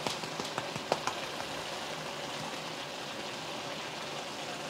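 Ground beef, onions and tomatoes sizzling and simmering in a hot pan: a steady, soft crackle, with a few light clicks in the first second.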